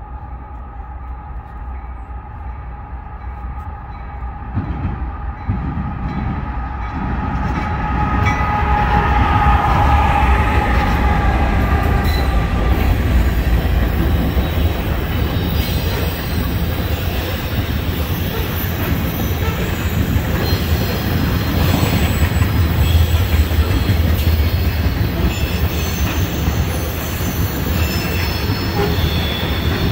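A Norfolk Southern diesel freight train approaching and passing: the locomotive's horn sounds a chord that drops in pitch as it goes by at about ten seconds, over a rumble that builds from about five seconds. After that, loaded tank cars roll past with steady wheel rumble, clatter and high wheel squeals.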